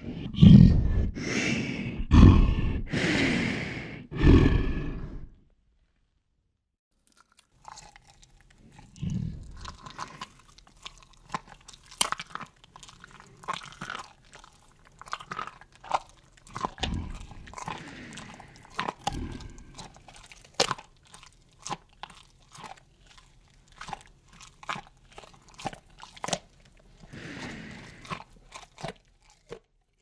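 A large wild animal gives about four loud, low growls, then after a short pause crunches and chews, with irregular sharp cracks and now and then a low growl: a big predator feeding.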